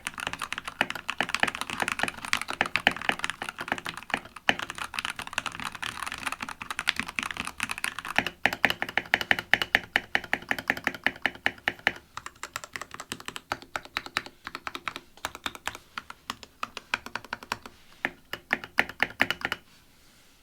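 Typing on a Keychron K8 Pro mechanical keyboard with Gateron G Pro Brown tactile switches: rapid, continuous keystrokes with a few brief pauses, stopping shortly before the end.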